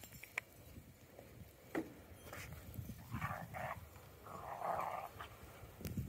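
Borzoi puppies vocalising as they play: two short cries about three seconds in, then a longer one from about four to five seconds.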